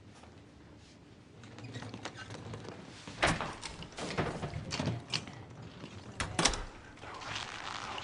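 A series of sharp knocks and thuds, door-like, with shuffling between them. The first comes about three seconds in and the loudest pair near six seconds.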